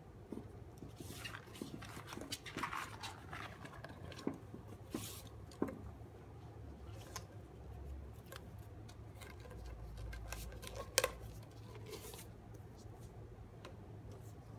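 Faint handling noises from a small whiteboard and a wooden board: scattered taps, light knocks and rubbing, with one sharper click about eleven seconds in.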